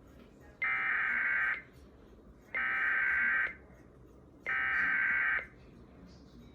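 Emergency Alert System SAME header: three high-pitched bursts of digital data tones, each about a second long with about a second's pause between. It is the coded opening of a broadcast Amber Alert (child abduction emergency).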